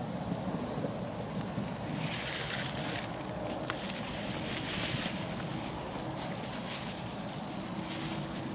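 Plastic bags rustling and crinkling as they are picked up and carried, in a few separate bursts.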